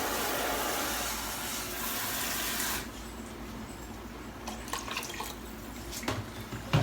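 Water running steadily in a kitchen, stopping abruptly about three seconds in, followed by a few light clinks and knocks of kitchenware.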